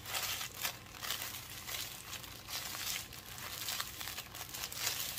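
A sleeve of Ritz crackers squeezed and crushed by hand inside its wrapper: irregular crinkling of the packaging and the crunch of crackers breaking into crumbs.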